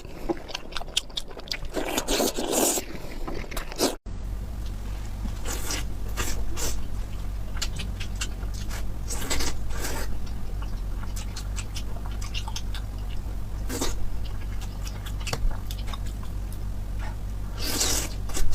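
A person eating bread: bites and chewing with scattered crunchy, scraping mouth noises. After a break about four seconds in, a steady low hum runs underneath.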